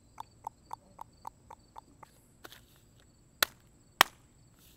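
Two sharp slaps about half a second apart near the end, a hand coming down on a paper instruction sheet lying on concrete. Before them, a repeated short animal call, about four a second, fades out about two seconds in. A steady high insect drone runs underneath throughout.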